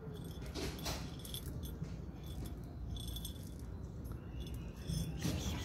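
Dry cat kibble rattling and clinking in a small glass jar as it is shaken out in several short bursts.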